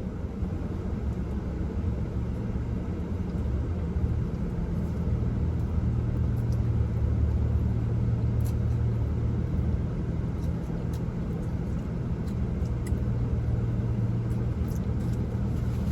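Steady low hum of a car's idling engine heard from inside the cabin, with a few faint clicks over it.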